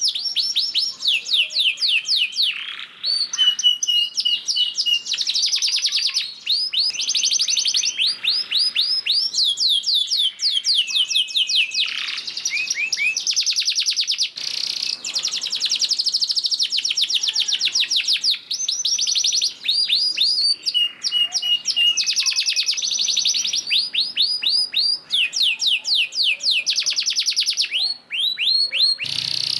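Domestic canary singing a long unbroken song of fast rolling trills: rapid runs of repeated high chirps, broken twice by a short steady held note.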